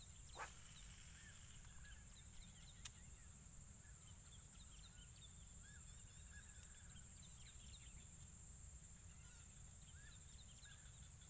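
Faint outdoor ambience: a steady high insect drone with many short, scattered bird chirps over a low rumble, and two faint clicks in the first three seconds.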